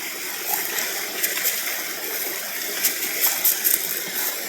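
Waterfall water running steadily, with short sharp splashes about a second in and several more in quick succession in the second half.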